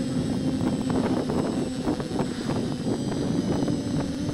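Quadcopter's brushless motors and propellers humming steadily, with gusty wind crackle on the microphone; the hum fades for a moment in the middle and comes back near the end.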